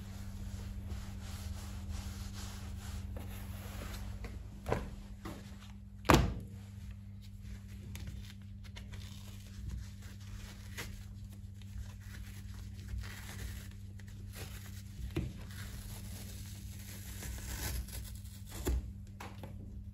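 Hand-work sounds: old lining being pulled and torn off a shoe insole, with rubbing and handling noise and a few knocks, the loudest a sharp one about six seconds in. A steady low hum runs underneath.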